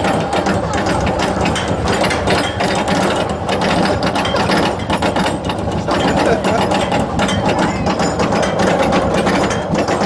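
Roller coaster lift-hill clatter: the Viper train's chain lift and anti-rollback dogs clacking rapidly and steadily as the car climbs.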